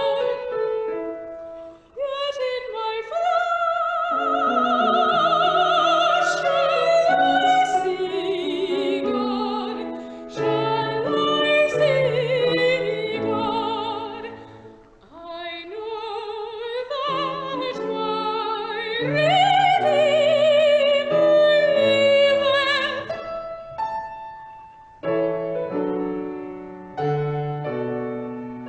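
A solo voice singing a slow song in classical style with a wide vibrato on its held notes, accompanied by piano. The piano carries on alone between phrases and through the last few seconds.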